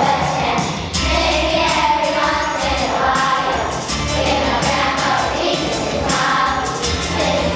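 Children's choir singing a Christmas program song together over an instrumental backing with a steady bass line.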